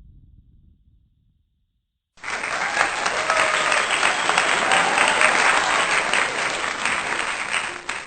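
Applause: many hands clapping, starting suddenly about two seconds in and cutting off sharply at the end.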